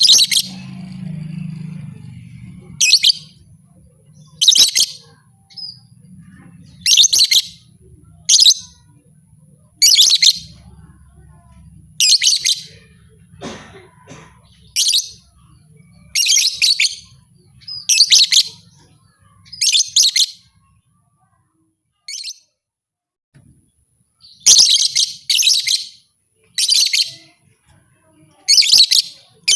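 A lovebird calling in short, loud, shrill chirping bursts, each about half a second long and repeated roughly every second and a half, with a brief pause about two-thirds of the way through.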